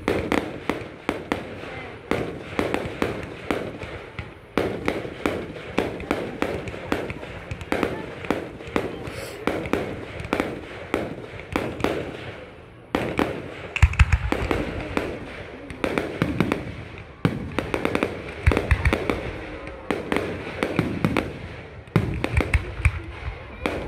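Fireworks display: a rapid run of aerial shells bursting in bangs and crackles, with several heavier, deeper booms in the second half.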